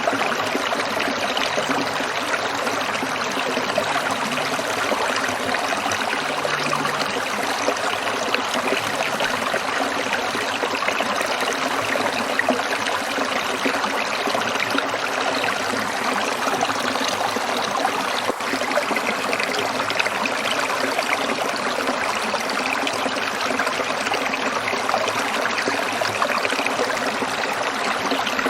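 Small stream trickling steadily over stones, a continuous splashing and babbling of running water.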